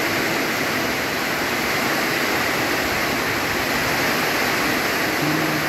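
Heavy rain pouring down in a downpour, a steady dense hiss that holds an even level throughout.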